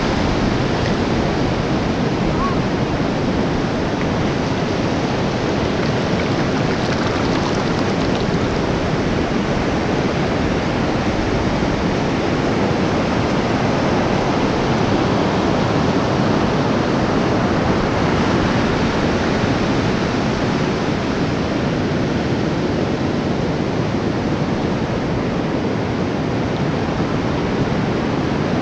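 Ocean surf breaking on the shore in a steady, unbroken rush of waves, with wind on the microphone.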